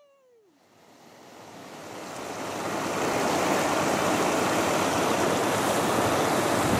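Rushing whitewater of a river rapid, swelling over the first few seconds into a steady loud rush of churning water.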